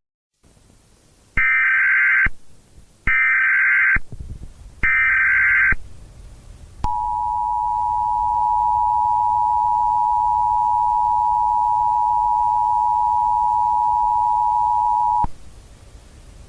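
Emergency Alert System activation tones. Three short bursts of SAME header data tones, each about a second long, are followed by the steady two-tone EAS attention signal, held for about eight seconds before it cuts off.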